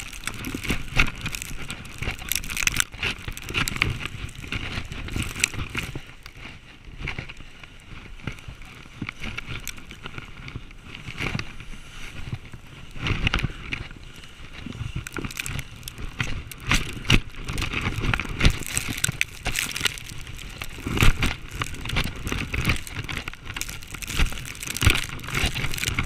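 Body sledding fast down a snow slope: a continuous scraping hiss of sliding over snow, with irregular crunches and knocks as the slider bounces and snow sprays against the chest-mounted GoPro.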